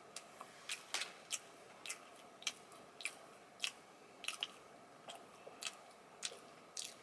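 A person chewing a soft cream-filled sponge snack cake close to the microphone, with short mouth clicks about two a second.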